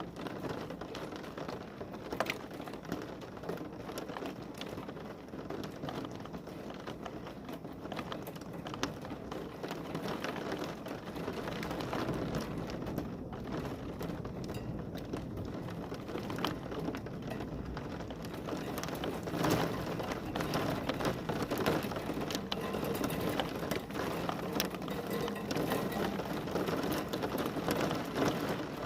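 Heavy rain falling steadily, with drops pattering and ticking on a hard surface; it grows heavier about two-thirds of the way through.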